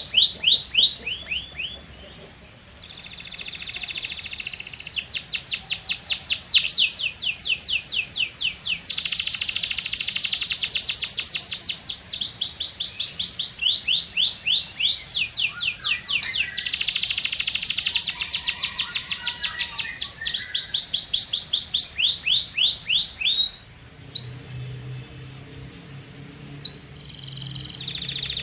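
A canary singing a long song of rapid trills, each a run of fast, evenly repeated notes that switches to a new trill every second or two. The song is loudest in the middle and goes quieter near the end, where a faint low hum comes in.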